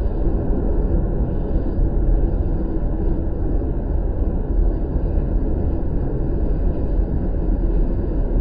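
Storm wind buffeting the microphone in a steady, deep rumble with no separate events.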